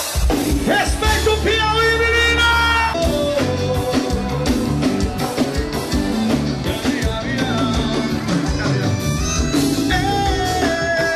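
Forró band playing, with a steady bass line and a singing voice over the music.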